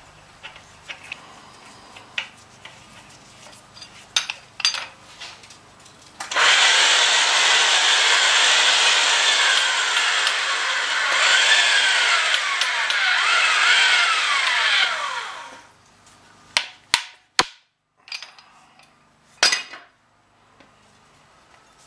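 Oster Power-Matic pipe threading machine running for about nine seconds, turning the black steel gas pipe in its chuck to spin a fitting onto the cut thread, then dying away. Sharp metal clanks and knocks of pipe and fitting handling come before and after.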